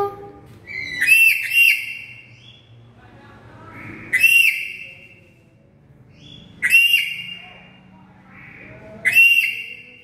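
Black-capped lory giving loud whistling calls: a quick pair about a second in, then single calls roughly every two and a half seconds, each a short upward-sweeping whistle with a harsh, ringing edge.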